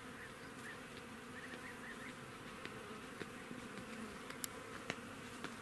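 An insect, a bee or fly by its sound, buzzing steadily close by in a single unbroken tone. Faint short chirps come in the first couple of seconds, and a couple of sharp ticks come near the end.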